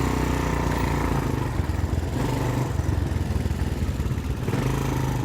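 ATV engine running steadily while riding, a constant low drone with a wash of noise over it.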